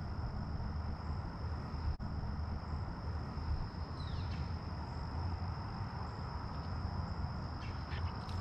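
A steady, high-pitched insect buzz over a low, even rumble, with a few brief bird chirps about four seconds in.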